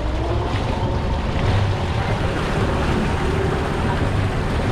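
A boat running at speed: steady wind rushing on the microphone and water washing past the hull, with an outboard motor running underneath.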